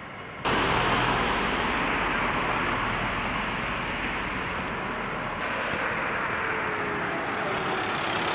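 Loud, steady rushing noise of a motor vehicle running close by. It starts abruptly about half a second in, and a faint tone falls slowly in pitch near the end.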